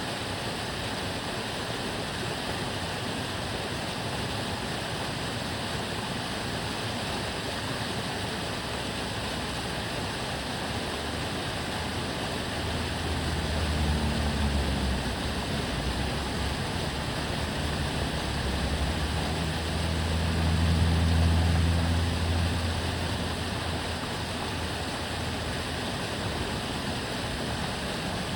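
Water rushing steadily in a narrow urban aqueduct canal. Between about 12 and 23 seconds in, the low hum of passing motor vehicles swells up twice and fades away under it.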